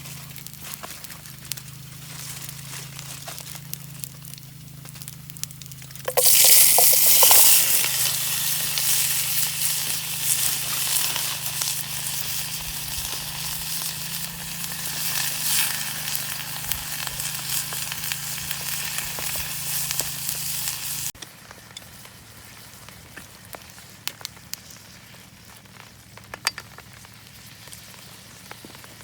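Food sizzling as it hits a hot pan: a sudden loud sizzle starts about six seconds in, eases a little, then cuts off abruptly about two-thirds of the way through. There is faint crackling before and after.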